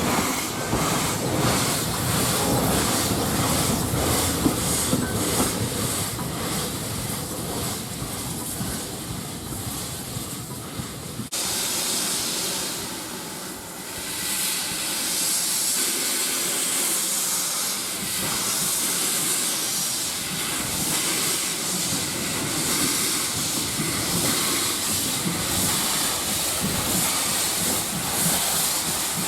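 Steam locomotive hissing steam. The sound changes abruptly about eleven seconds in, after which a high steam hiss dominates.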